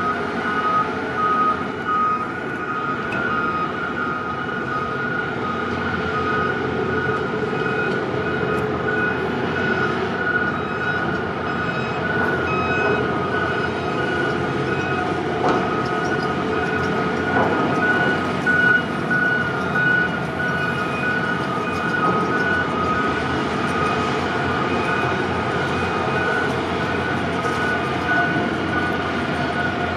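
Container straddle carriers driving with their engines running, while warning beepers sound repeated high beeps at two slightly different pitches.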